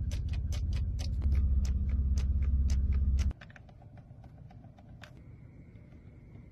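Rapid, irregular clicking of a car's steering-column stalk being flicked through its switch positions, over a low steady cabin rumble. Both stop abruptly about three seconds in. A faint steady high tone comes in near five seconds.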